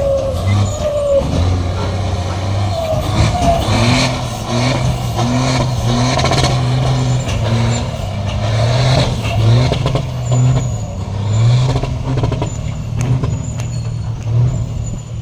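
Diesel engine of a tractor-trailer truck working hard under a heavy load as it hauls a sand dredge boat on a lowboy trailer over soft dirt. The engine note wavers up and down over a rough, noisy background.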